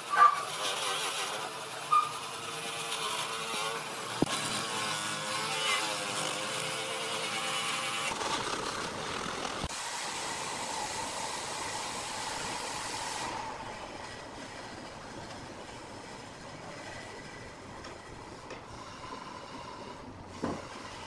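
Handheld angle grinder with a sanding disc running against a large turned wooden vase, its pitch wavering as it bears on the wood, with a few sharp knocks. After about eight seconds it gives way to a steadier machine noise that drops to a lower hum.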